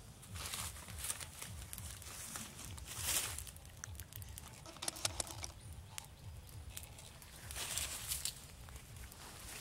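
Rustling and crackling of leaves and twigs in short swells, with a few small clicks between them, over a low steady rumble.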